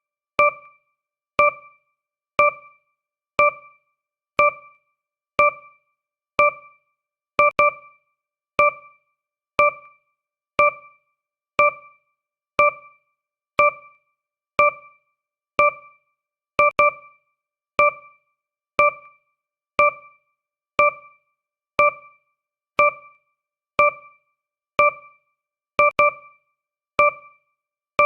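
Countdown timer tick sound: a short, piano-like electronic note at one fixed pitch, struck about once a second and dying away quickly, with silence between strikes; now and then the note sounds twice in quick succession.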